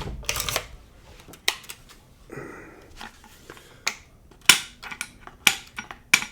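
Metal parts of an HK MP5 being handled during assembly: a run of separate sharp clicks and clacks with a brief scrape about two seconds in.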